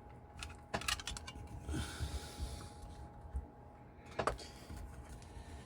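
Light clicks and taps of small metal parts and hand tools being handled at a jewelry bench: a quick run of clicks about a second in, a soft scrape near two seconds, and a few more clicks past four seconds.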